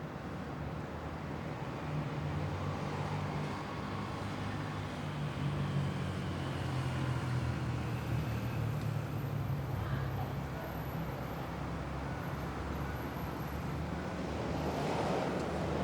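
Heavy city traffic heard from a rooftop: a steady blended rumble of engines and tyres, with a faint high whine for a few seconds in the middle and a swell of noise near the end.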